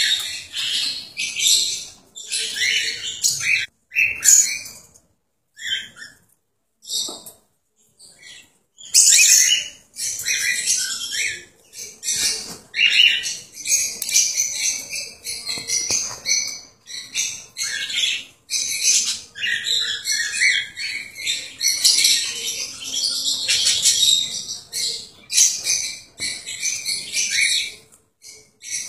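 Cockatiels chirping in quick, high-pitched calls. The calls come sparsely with short pauses at first, then turn into near-continuous chatter from about a third of the way in.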